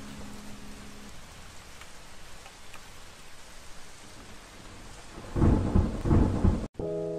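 Steady rain hiss, with a heavy rumble of thunder about five seconds in. It cuts off abruptly and sustained music notes come in just before the end.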